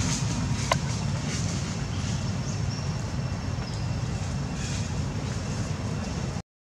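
Steady low outdoor rumble with a fainter hiss above it and a single sharp click about a second in; the sound cuts out abruptly for a moment near the end.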